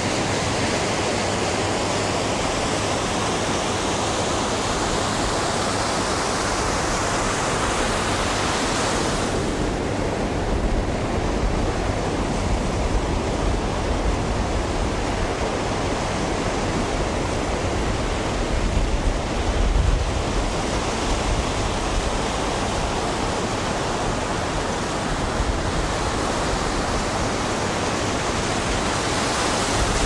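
Ocean surf breaking and washing onto a shore, a continuous hiss of foaming water. The hiss thins out about nine seconds in and swells again near the end, with low rumbles now and then in between.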